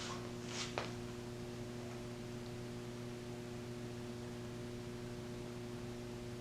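Vintage Kenmore Roll-A-Matic 20-inch box fan running, its electric motor humming steadily, with a single short click about a second in.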